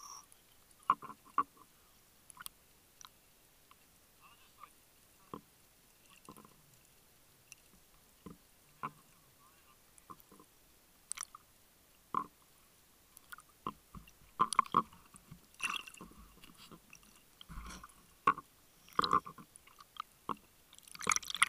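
Irregular sharp clicks and knocks with short crackly clusters, growing busier in the second half, from water moving around an underwater camera housing just under the surface.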